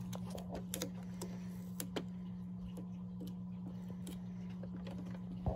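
Light plastic clicks and taps as parts of a plastic model steam engine kit are handled and fitted together, a few sharp ticks scattered through and a louder knock near the end, over a steady low hum.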